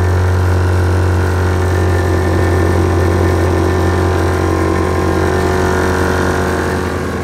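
Air-ride compressor running steadily, pumping up the system's air tank: a loud, steady hum.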